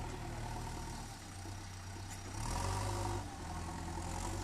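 Heavy diesel engine of a construction machine running steadily, louder for under a second about halfway through.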